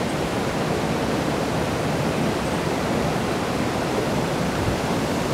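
Steady, even rush of water from a creek waterfall, with no break or change.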